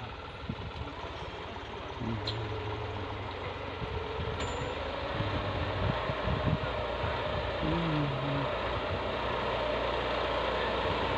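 Farm tractor's diesel engine running under load as it pulls a mouldboard plough through the soil, growing steadily louder as it approaches.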